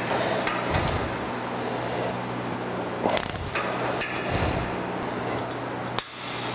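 Ratchet wrench clicking in several short runs as a bolt on a steel light-bar mounting bracket is turned, over a steady low hum.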